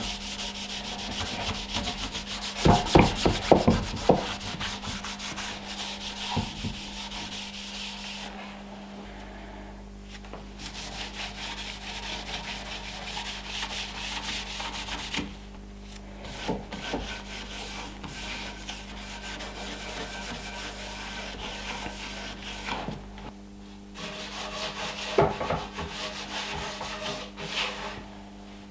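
Cloth rubbing wax finish into the oak table base in quick back-and-forth strokes, pausing briefly now and then, with a few louder knocks about three seconds in.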